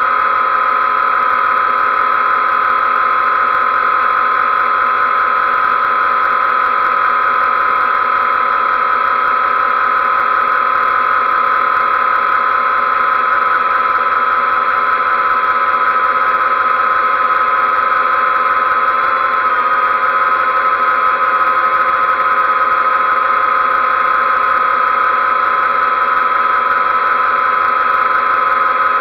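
XK X380 quadcopter's motors and propellers running with a steady high whine while hovering, dipping briefly in pitch about two-thirds of the way through.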